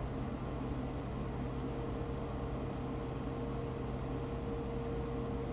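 Steady low hum with an even background hiss and a faint, unwavering mid-pitched tone held throughout, a tone that is taken for a weather alert going off.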